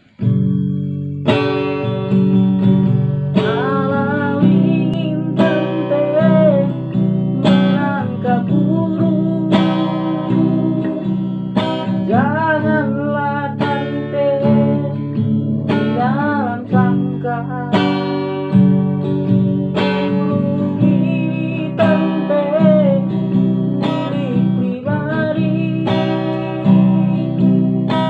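Acoustic guitar strummed in a steady rhythm, with a voice singing a wavering melody over it.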